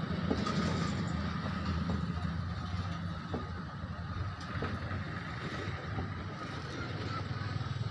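A steady low mechanical hum, as of an engine or motor running, with a few faint knocks.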